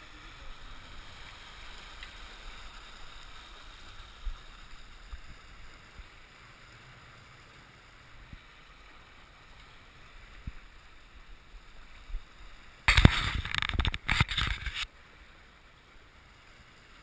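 Sailing yacht moving under sail: a low, steady rush of water along the hull and wind. About 13 s in, a loud, choppy burst of rushing noise lasts about two seconds.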